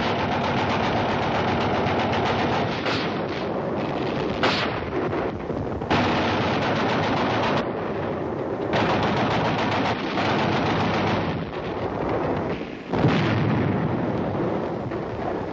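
Belt-fed machine gun firing in long rapid bursts with brief pauses, and a louder bang near the end.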